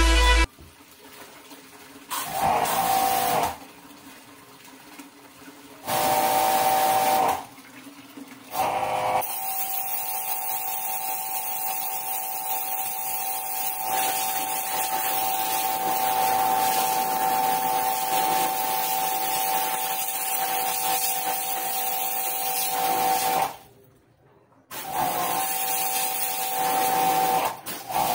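MHLD 358C 1800 W electric pressure washer running in several bursts: a steady motor whine under the hiss of the water jet striking a metal door and concrete floor. The motor starts and stops with the spray gun's trigger, with a short run about two seconds in, another about six seconds in, a long run from about nine seconds to twenty-three, and more near the end.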